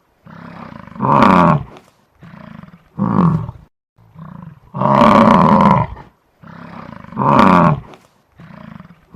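Bison bellowing: a run of deep, roaring calls, four loud ones of about a second each with shorter, quieter grunts between them.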